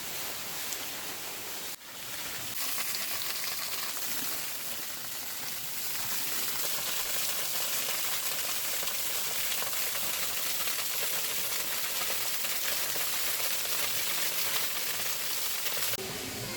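Waterfall: a steady rush of falling water. About two seconds in it drops out for a moment, then returns louder.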